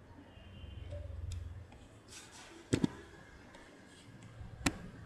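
Two sharp taps over faint room noise and a low hum: a quick double tap about three seconds in, and a single tap near the end.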